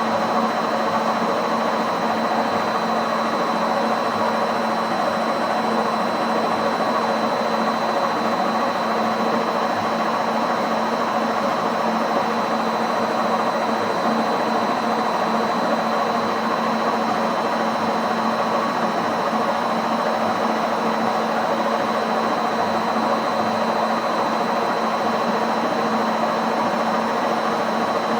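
Indesit WISN 101 washing machine running on its rinse programme: a steady motor hum with a thin high whine, unchanging throughout.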